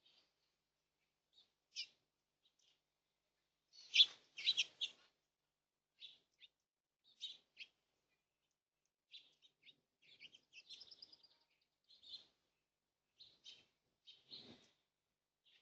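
Birds chirping: scattered short calls, a louder cluster of calls about four seconds in, and a quick run of notes around ten seconds in.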